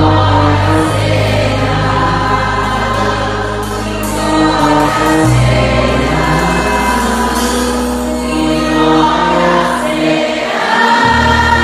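A choir singing a gospel hymn in long held chords over sustained bass notes of an accompaniment.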